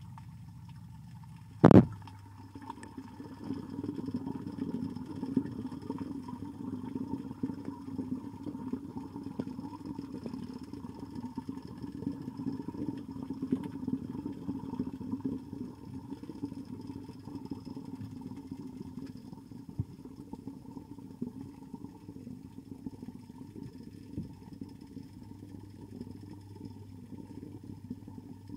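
Muffled underwater rumble picked up by a camera submerged in a pond: a steady low churning noise, with one sharp knock about two seconds in.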